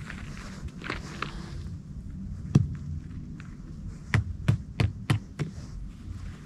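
A hiker's footsteps on the mountain trail over a steady low rumble: one sharp knock about two and a half seconds in, then a quick run of five knocks, about three a second, a little past the middle.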